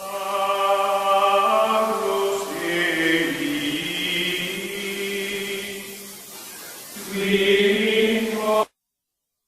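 Music of sung voices holding long notes in a chant-like drone, shifting pitch a couple of times and cutting off suddenly near the end.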